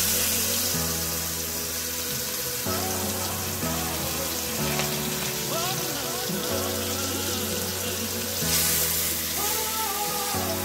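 Seasoned chicken pieces sizzling in hot oil in a stainless-steel wok, a steady frying hiss that swells about eight seconds in as a second piece goes in. Background music plays underneath.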